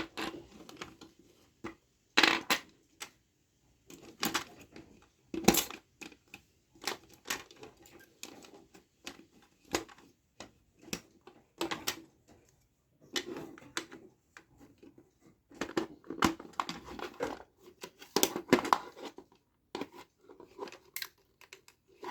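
Plastic parts of a toy gun being handled and fitted together: irregular clicks, taps and knocks in small clusters with short pauses between them.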